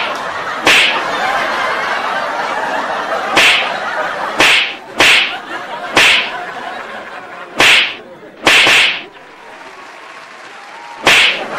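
Sharp, loud punch sound effects, about nine hits at uneven intervals with one quick pair, standing for the cats' paw strikes, over a steady crowd murmur.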